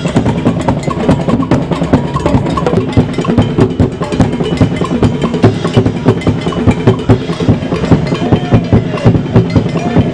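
Street drum band playing a fast, dense beat, a large drum struck with a padded mallet among smaller drums.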